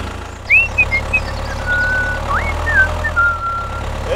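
A steady low engine drone, with high whistled notes over it that swoop up and then hold or step down, in two phrases about two seconds apart.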